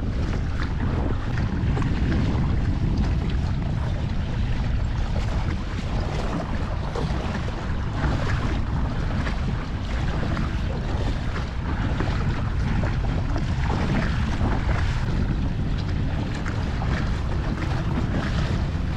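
Wind buffeting the microphone in a steady low rumble, with water lapping and splashing against the kayak's hull.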